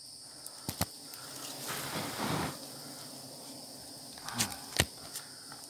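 Branches and leaves rustling with a few sharp knocks as someone shifts about in a tree, over a steady high-pitched insect chorus.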